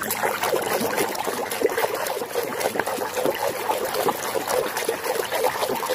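A hand swishing and churning water in a plastic tub, with continual small splashes and sloshes as muddy toys are scrubbed.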